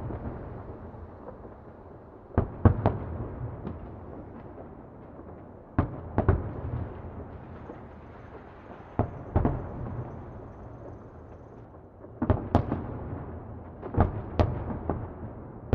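Distant fireworks exploding: clusters of two or three sharp bangs every few seconds, each trailing off in a long echoing rumble that carries on between the bursts.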